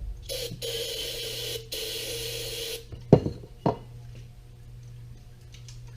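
Aerosol can of carburettor cleaner spraying in three blasts of hiss over about two and a half seconds, rinsing loose debris out of the hedge trimmer's fuel system. Two sharp knocks follow about half a second apart.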